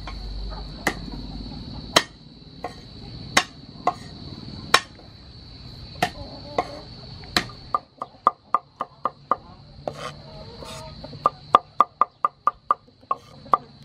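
Cleaver chopping garlic on a wooden cutting board: single sharp chops about once a second at first, then two quick runs of rapid chopping at about six strokes a second in the second half.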